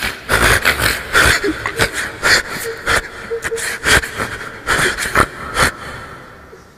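A man sobbing into a microphone, with sharp gasping breaths and sniffs coming in irregular bursts: an imam overcome by weeping in the middle of a Quran recitation.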